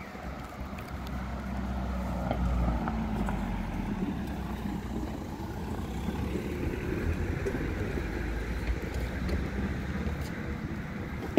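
Road vehicle engine running close by, a low steady rumble that grows louder about two seconds in.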